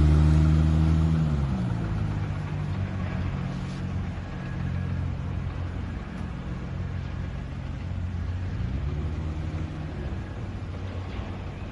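1998 Plymouth Prowler's 3.5-litre V6 pulling away and driving off. The engine note drops after about a second and a half, holds steady, then climbs again about nine seconds in, fading as the car moves away.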